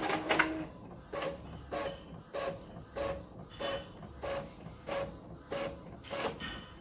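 Epson EcoTank ET-4700 inkjet printer printing a sheet of sticker paper. The print-head carriage sweeps back and forth in a steady rhythm, a pass roughly every half second, each pass a short whir.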